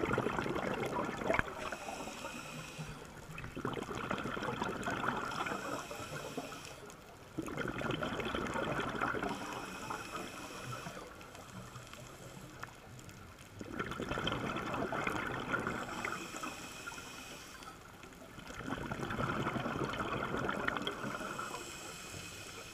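Scuba diver's exhaled breath bubbling out of the regulator, heard underwater: bubbly washes of a few seconds each that come back every five or six seconds, with quieter gaps between them.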